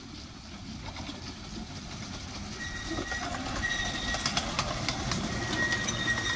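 Severn Lamb miniature steam locomotive and passenger carriage approaching and running past close by, growing steadily louder, with clicking from the wheels on the track. A thin high squeal comes and goes in the second half.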